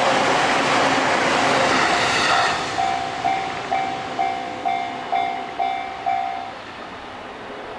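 A JR Sobu Line train running past the level crossing, a loud rushing rumble that dies away about two seconds in. As it clears, the crossing's warning bell rings "kan-kan" about eight times, roughly two strikes a second, then stops: the signal ending once the train has passed.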